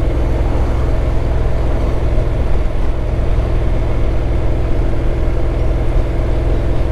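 Honda NC750X motorcycle's parallel-twin engine running at a steady cruise, heard under a strong, even low rumble of wind and road noise.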